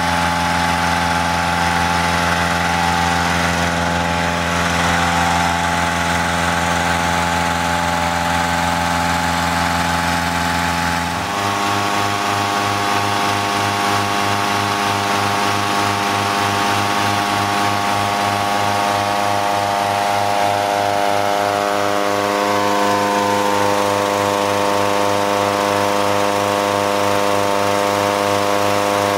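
Petrol-engine inflator fan running steadily at constant speed, blowing cold air into a hot-air balloon envelope during cold inflation. Its tone changes abruptly about eleven seconds in, then holds steady again.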